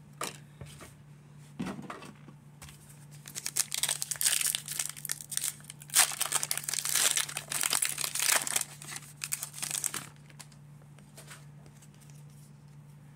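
Foil wrapper of a 2022 Donruss baseball card pack being torn open and crinkled by hand, a dense crackling from about two to ten seconds in. A faint low hum runs underneath.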